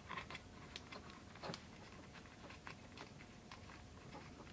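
Faint, scattered small clicks and rubbing from handling a Sordin Supreme Mil CC Slim earcup as it is screwed hand-tight onto the arm of a helmet rail adapter. The most distinct click comes about a second and a half in.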